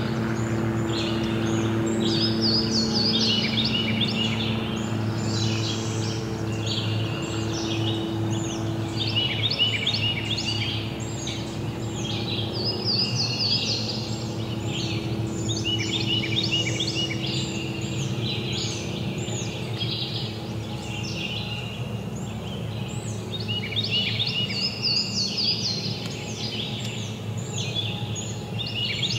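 A chorus of songbirds singing and chirping steadily, with many overlapping short calls and trills, over a low steady hum.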